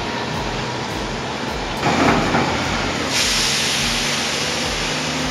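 Machinery running steadily, joined about three seconds in by a steady hiss of escaping steam.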